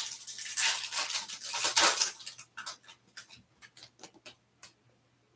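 Foil trading-card pack being torn open and crinkled for about two seconds, then a run of light separate clicks as the stiff chrome cards are handled.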